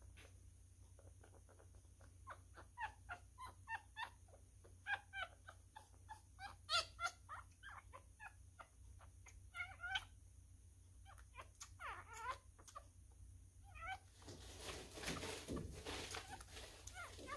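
Newborn miniature schnauzer puppy squeaking and whimpering in many short, high cries, often several a second, while being syringe-fed. Near the end comes a few seconds of louder noise without a clear pitch.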